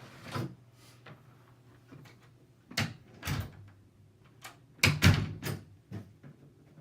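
A string of sharp clicks and knocks, about eight in all, loudest in a cluster about five seconds in: a plastic smoke alarm being handled as it is readied for powering up. No beeping.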